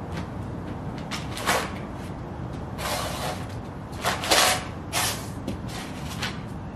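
Sheepskin boots stomping and grinding on magazines on a concrete floor: the glossy pages crinkle and crunch in a string of short bursts, the loudest a little past halfway, over a steady low background rumble.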